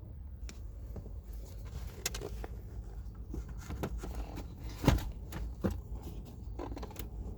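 A new cabin air filter being slid into its plastic housing behind the glove box: scraping of the filter frame against the plastic with scattered clicks and knocks, the loudest knock about five seconds in.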